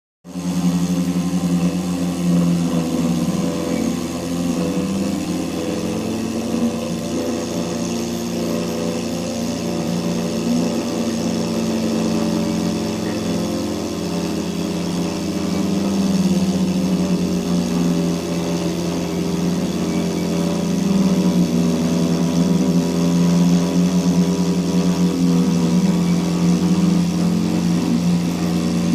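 CNC router engraving lettering into fibreboard with a V-bit: the spindle motor runs steadily while the machine hums, its tones slowly rising and falling as the cutter moves.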